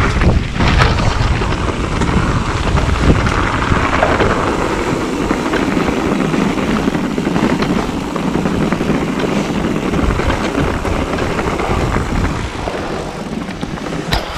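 Wind rushing over the microphone of a camera worn by a mountain biker, with knobbly tyres rolling on a dirt trail and the bike rattling and knocking over bumps.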